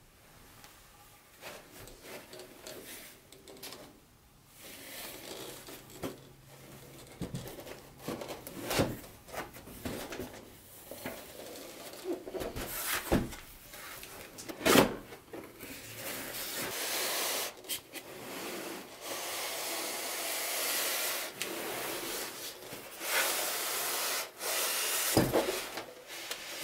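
Cardboard box and packaging of a model train set being handled and opened: cardboard rubbing and sliding, with several sharp knocks and longer stretches of scraping in the second half.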